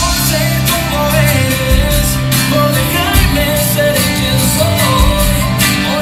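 Recorded pop music with a singing voice, bass and drums, played loud over a DJ's sound system for a dance.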